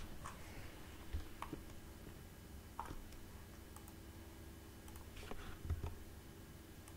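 Faint, scattered clicks of a computer mouse, about half a dozen spread irregularly, over a low, steady hum.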